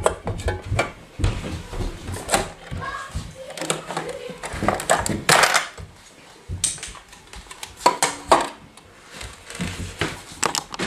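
Aluminium drink cans knocking and clinking against Lego bricks as a Lego vending machine is refilled by hand: a string of irregular clicks and clatters.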